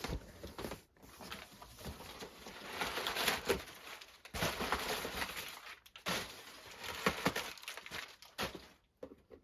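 Cardboard and plastic packaging being handled and rummaged through, with rustling and scattered light clicks and knocks.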